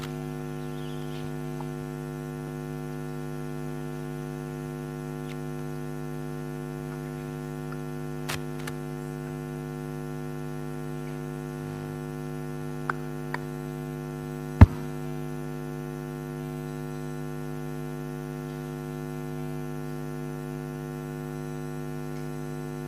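Steady electrical mains hum from a microphone and sound system, a low buzz with several evenly spaced overtones. It is broken by a few faint clicks and one sharp click about two-thirds of the way through.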